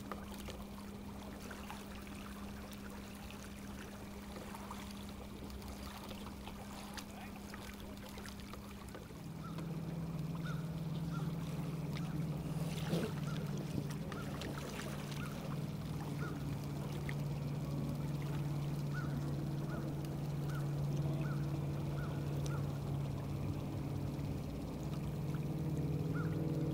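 Minn Kota electric trolling motor on a canoe, humming steadily under the load of towing a tube on a rope. About nine seconds in, the hum drops in pitch and gets louder.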